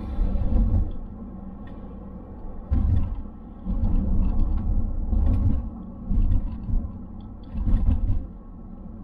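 Mountune M330-mapped Ford Focus ST Mk4 under way, its 2.3-litre turbocharged four-cylinder and the road giving a steady low drone, with irregular low rumbling surges every second or two.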